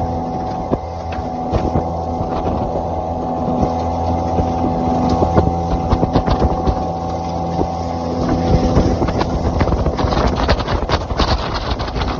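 Motorboat under way: a steady motor tone with water noise and wind on the microphone. From about nine seconds in, a quick run of sharp knocks and splashes joins it.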